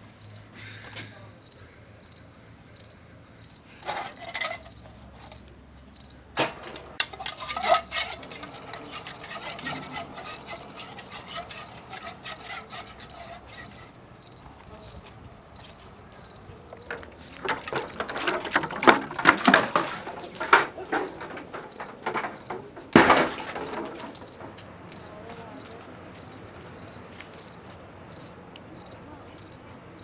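Crickets chirping steadily at night, a high pulse about twice a second, with bursts of clicks and rustling from something being handled and one sharp knock past the middle.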